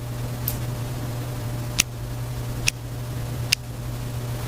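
A steady low hum with four short, sharp ticks spaced about a second apart.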